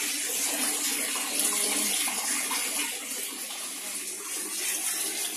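Water pouring from an outlet into a koi pond, a steady splashing.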